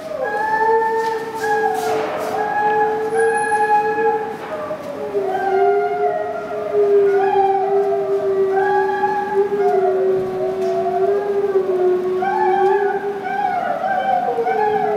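Two timber wolves howling in chorus: one holds a long, steady lower howl while the other's higher howl breaks and slides up and down over it. The howls echo strongly through the indoor viewing room behind glass.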